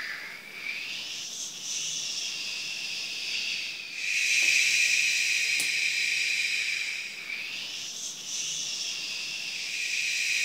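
Eerie high-pitched hissing drone that swells with rising and falling sweeps about a second in and again near eight seconds. From about four seconds in it settles into a steady high whine.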